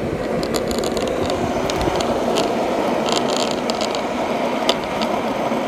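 Skateboard rolling on street asphalt: a steady rumble from the wheels, with scattered clicks and rattles throughout.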